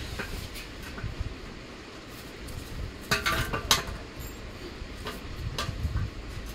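Small loose metal parts (nuts, bolts and a spanner) clinking against each other and the floor as they are handled, with a quick cluster of sharp metallic clinks about three seconds in and a few lighter taps around it.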